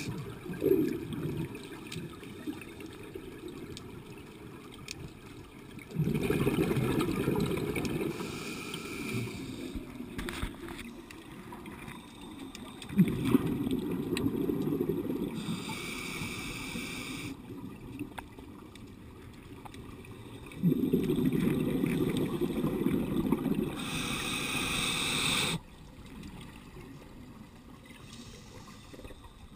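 Scuba regulator breathing underwater: a diver's exhaled bubbles rush out three times, several seconds apart, with a shorter hiss of inhalation through the regulator between them.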